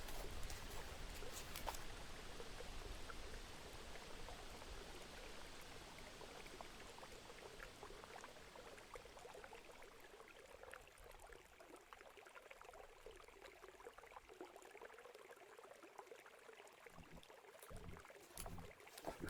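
Faint creek water trickling, slowly fading, with a few soft thumps near the end.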